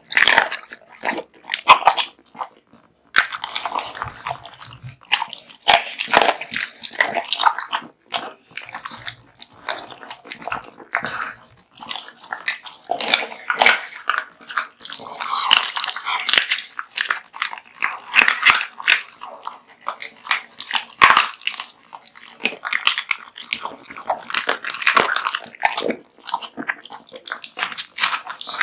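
An American Bully dog chewing and crunching through raw meat and bones: dense, irregular bites, crunches and wet chewing noises that barely pause.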